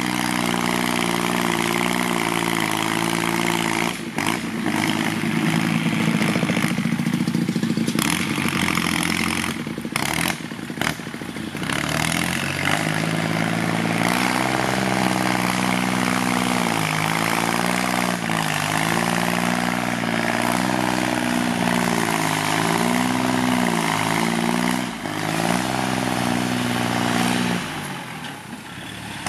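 Kubota L3608 tractor's diesel engine through a loud aftermarket exhaust, working under load. Its revs dip and recover again and again as it pushes soil, with a few brief breaks in the sound in the first half.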